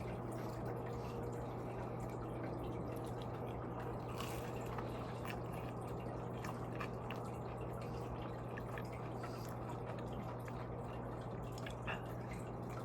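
Steady low hum and background noise with faint, scattered small clicks.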